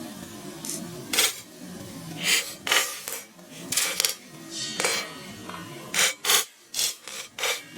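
Popcorn scraping and rattling in a pan: about a dozen short, irregular rasping strokes, bunched more closely near the end.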